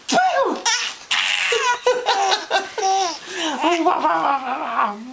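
Six-month-old baby laughing in repeated high-pitched bursts and belly laughs, set off by pretend sneezes.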